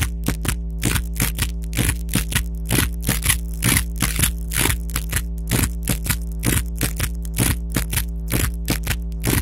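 Loud, distorted dance music over a loudspeaker system: a fast, steady percussive beat over a held low chord.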